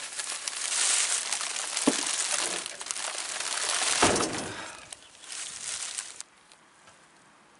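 Crinkling and rustling handling noise as the solar heating panel is moved back into position beside the plastic-wrapped duct, with a knock about two seconds in and a louder thump about four seconds in. The noise cuts off suddenly about six seconds in.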